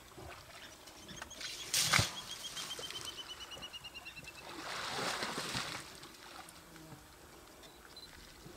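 Elephant bull wallowing in a mud pool, splashing and sloshing mud and water: a sharp splash about two seconds in and a longer wash of sloshing around the middle. Between them a bird gives a fast trill of high notes falling slowly in pitch.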